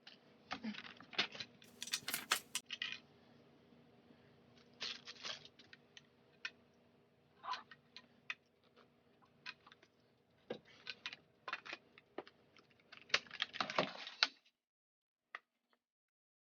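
Hard plastic baby-walker parts being handled and fitted together by hand: scattered clicks, knocks and light rattles, with sharper clusters about two seconds in and near the end.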